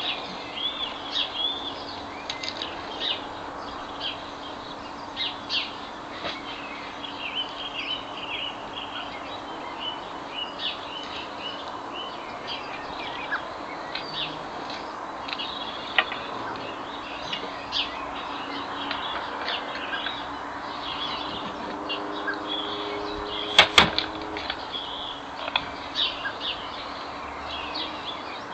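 Small garden birds chirping continuously, many short high chirps overlapping. About three-quarters of the way through, two sharp knocks close together stand out as the loudest sounds.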